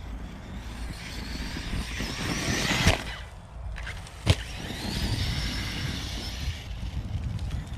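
Arrma 6S RC basher truck accelerating, its brushless motor and drivetrain whining as they rise in pitch over about two seconds. A sharp impact comes about three seconds in and another a second and a half later, followed by another burst of acceleration.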